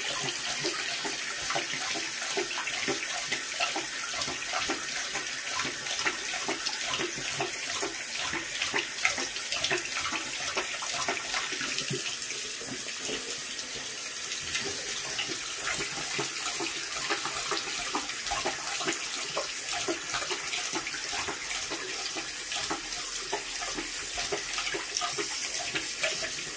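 A bathroom tap running steadily into a sink while a thirsty Great Dane laps from the stream, its tongue splashing in the water many times a second.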